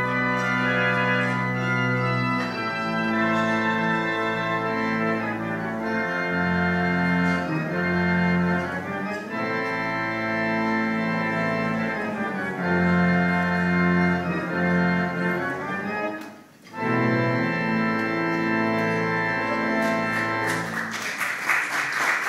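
Pipe organ playing held chords over deep pedal bass notes, with a brief pause about three-quarters of the way through before the last chords. Applause starts as the piece ends.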